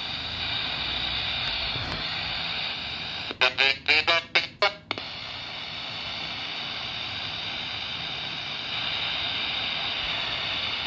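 Steady static hiss from a Radtel RT-470X handheld radio's speaker while it monitors the airband. About three and a half seconds in, a brief, broken snatch of a radio voice transmission cuts through for a second or two before the hiss returns.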